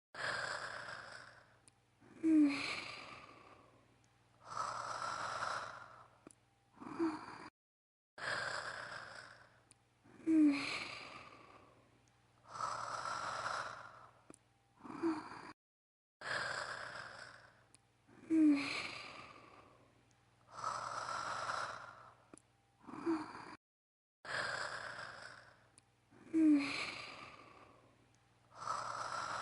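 A woman's voice-acted anime snoring: breathy in- and out-breaths with short snorts. The same snore cycle loops about every eight seconds, with a moment of dead silence between repeats.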